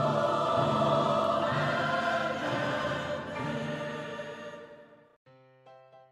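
Intro music: a sustained choral chord over orchestral backing that fades out over about five seconds, followed near the end by short, separate keyboard notes.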